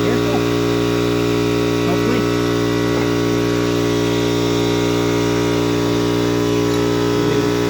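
Steady, unchanging hum with many evenly spaced overtones, like a mains-powered motor or electrical hum, with faint voices under it.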